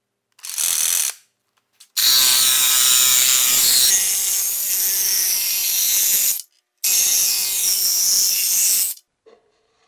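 Cordless drill driving a homemade jigsaw attachment, its blade sawing through a white panel. A short burst about half a second in, then two longer runs of cutting from about two seconds, with a brief pause between them.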